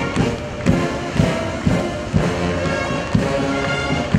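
Music with a steady, regular beat, about two beats a second, under sustained tones.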